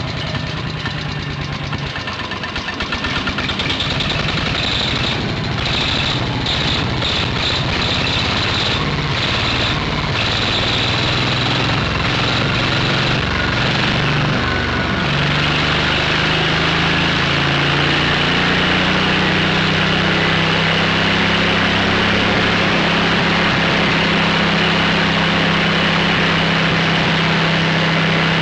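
Wisconsin air-cooled engine of a Bush Beaver wood chipper running on its first start after sitting abandoned. It runs unevenly with irregular knocks at first, then settles into a steady, even run about halfway through.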